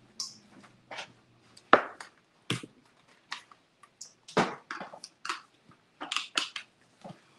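Irregular short clicks and knocks of objects being handled at a kitchen counter, one or two a second; the immersion blender is not yet running.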